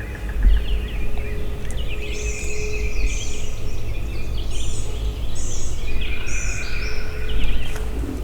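Several songbirds chirping and trilling in quick, overlapping phrases, over a steady low rumble and a faint steady hum.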